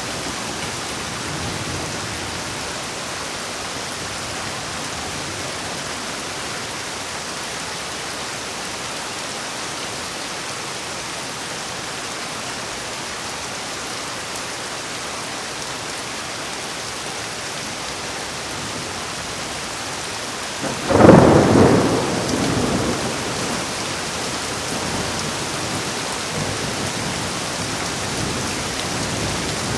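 Heavy rain falling steadily, with one sharp, loud thunderclap about two-thirds of the way in that rumbles away over a second or two.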